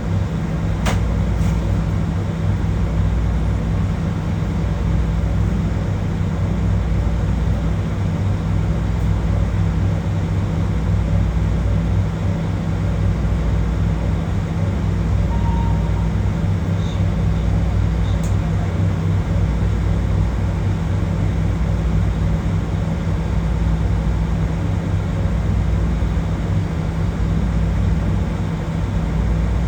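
Steady low hum of a JR Kyushu 821 series electric train heard from inside the cab end, with a couple of faint clicks.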